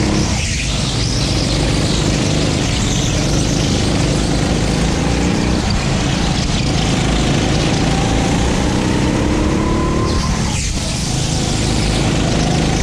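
Racing go-kart's small engine running hard, its pitch climbing and then dropping briefly as the throttle is lifted, about half a second in, near six and a half seconds and about ten and a half seconds in.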